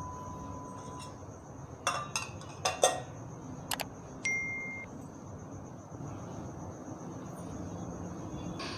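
Pot of rasam simmering gently, a low steady bubbling hiss. A few sharp clinks come about two to four seconds in, the last one ringing briefly.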